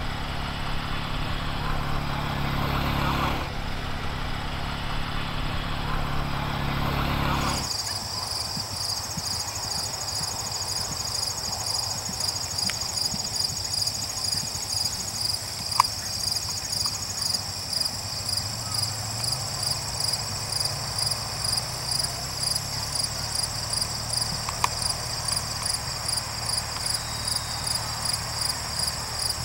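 An engine drone that cuts off after about seven seconds, then insects chirping in a fast, even, high-pitched pulse that keeps on, with two brief sharp clicks.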